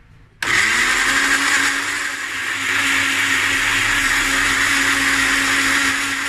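Electric kitchen blender switched on about half a second in, its motor spinning up fast and then running steadily at full speed as it grinds green chillies and turmeric with liquid into a paste.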